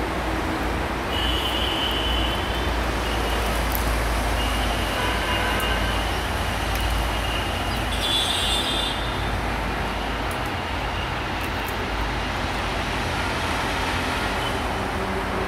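Steady rumble of road traffic and vehicles, with a thin high tone coming and going over the first half.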